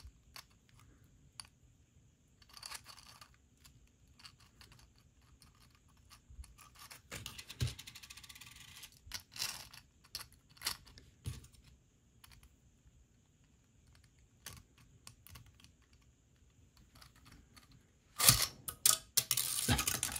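Hard 3D-printed plastic parts of a pull-string propeller toy clicking and knocking as they are handled and fitted together, with a short rubbing scrape about eight seconds in. Near the end comes a louder, quick run of clicking as the toothed plastic ripcord is pushed into the launcher.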